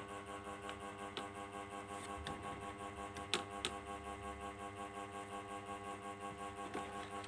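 Steady droning hum with many even overtones and a faint regular pulse, with a few small sharp clicks about a second in and again around three and a half seconds in.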